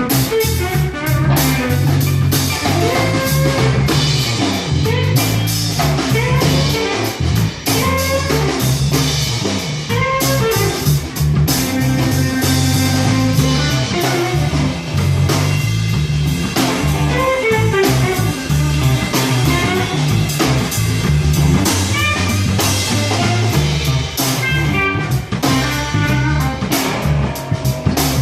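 Live blues-rock band playing loud: electric guitar lead with bending notes over bass and drum kit.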